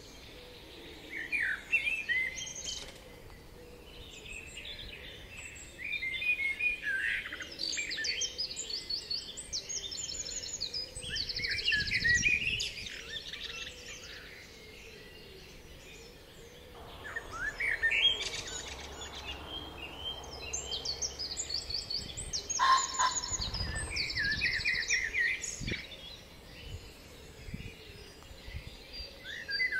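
Songbirds singing, with many quick chirps and fast trills coming and going in clusters.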